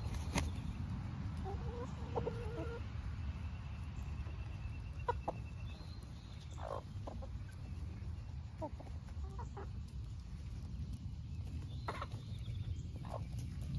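Backyard hens clucking softly while pecking and chomping at napa cabbage leaves, with scattered sharp pecking clicks over a steady low rumble.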